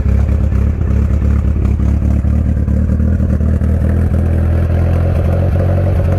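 Car engine running loudly at steady, even revs, a low constant drone.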